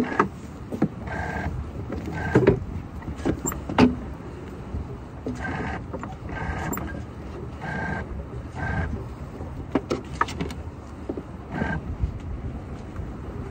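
A sailboat line being hauled by hand in short pulls, squeaking as it runs through the deck hardware, about seven squeaks in all, with scattered knocks of rope and fittings.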